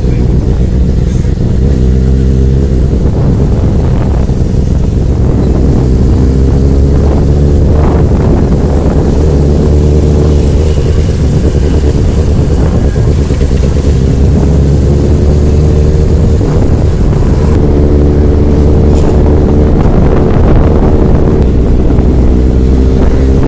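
Benelli 600 motorcycle's inline-four engine running on the move, its pitch rising and falling again and again as it accelerates and shifts through the gears, over a heavy steady low rumble.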